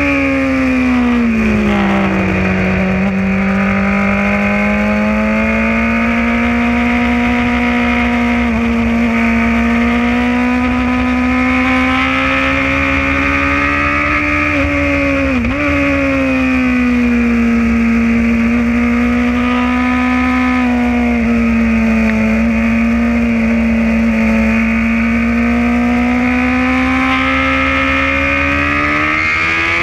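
Sport motorcycle engine running hard at high revs, heard from a camera mounted on the bike. Its pitch falls over the first couple of seconds as the bike slows, then climbs steadily. It dips sharply for a moment about halfway through, sags again and rises near the end.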